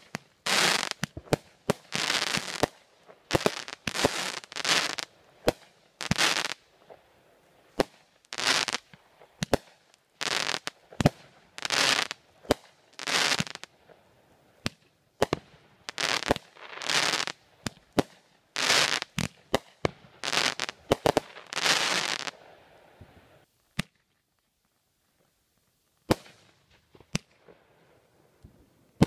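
Aerial fireworks going off in a rapid run: sharp bangs mixed with longer, noisy bursts about once a second. The run stops about three-quarters of the way through, with a few lone cracks near the end.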